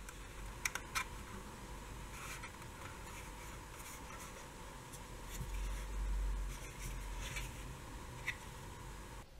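Hands handling a small plastic Godox LED64 LED video light: soft rubbing and scraping of fingers on the housing, with a few sharp clicks, two close together about a second in and one near the end.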